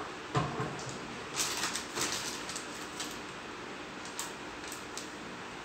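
Handling noises from a plastic powder canister and a packet of instant tea premix: crinkly rustles and scattered light clicks and knocks, busiest a little over a second in and again near the end.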